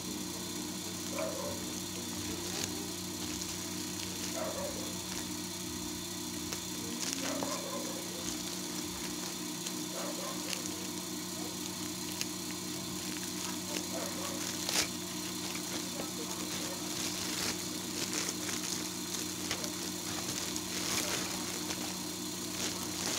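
Plastic courier mailer crinkling and scissors snipping through it, short sharp crackles scattered through, over a steady machine hum.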